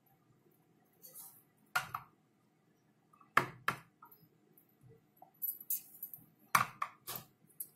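Silicone spatula scraping thick cake batter out of a glass mixing bowl into a metal cake tin, giving a series of short, irregular knocks and clinks of the bowl and spatula, busiest in the second half.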